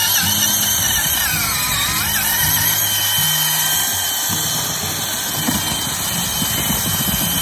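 Cordless drill driving an ice auger through lake ice, its motor running steadily under load, with background music laid over it.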